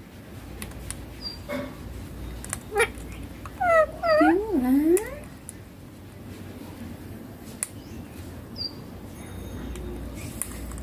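Young ringneck parakeet calling: a quick run of short squawks that slide up and down in pitch, about four seconds in, with a few faint clicks around them.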